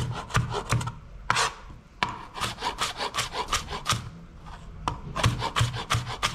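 Broad-bladed kitchen knife chopping a tomato finely on a plastic cutting board: quick runs of about five strokes a second, broken by two short pauses.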